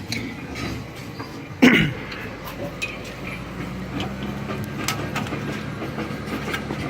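Hand work on a car's brake assembly: scattered metal clicks and knocks, with one loud sudden sound about two seconds in. A steady low hum sets in partway through.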